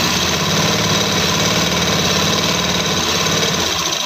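Domestic straight-stitch sewing machine running at speed, the needle stitching a seam in a fast, even clatter that eases off near the end.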